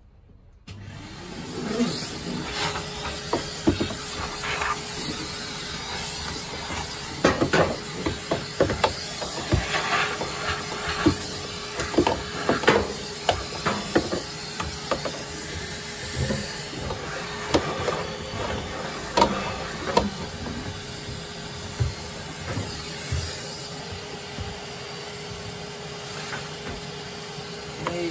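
Vacuum cleaner switched on about a second in and running steadily with a constant whine, with repeated sharp knocks and clicks as the nozzle bumps and scrapes while it hoovers out the dryer.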